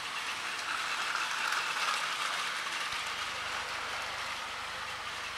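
Plarail battery-powered toy trains running on plastic track: a steady whir of small motors and gears, swelling slightly about one to two seconds in.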